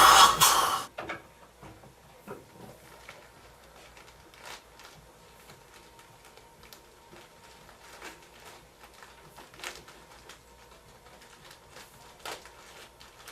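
Dental suction tool hissing loudly, then cutting off suddenly about a second in. It is followed by faint, scattered small clicks and taps.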